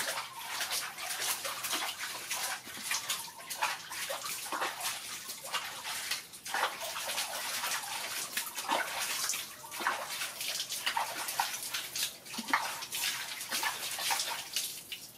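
Water splashing and sloshing in a plastic bucket as a small monkey is washed by hand: handfuls of water scooped up and splashed over it, running and dripping back into the bucket, in irregular bursts throughout.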